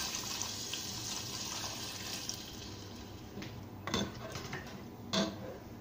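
Water poured in a steady stream into a pot of fried masala, splashing for about the first two seconds. Then a ladle stirs the mix, knocking twice against the side of the pot.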